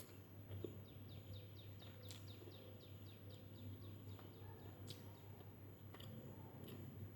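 A bird singing faintly in the background: a quick run of short down-slurred chirps, about five a second, lasting roughly three seconds, over a steady low hum. A few faint clicks come later.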